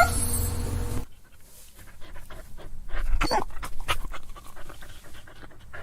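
Dog panting with short, irregular breaths and snuffles, after a louder hissing stretch in the first second.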